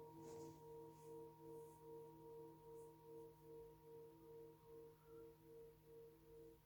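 Himalayan singing bowls ringing faintly, two pitches sounding together about a fourth apart. The tone wavers in a steady pulse about two to three times a second and slowly fades.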